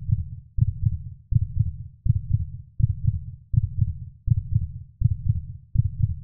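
Heartbeat sound effect: a slow, regular low thumping, about one heavy double beat every three quarters of a second.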